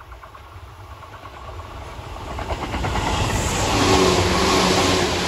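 Tobu 350 series electric train approaching and passing close by, growing steadily louder to a peak about four seconds in: the rumble and clatter of its wheels on the rails, with a steady hum from the running gear as the cars go past.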